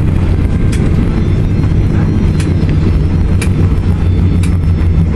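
Loud, steady low rumble inside the cabin of a Boeing 737 airliner rolling out on the runway just after landing, with sharp knocks about once a second.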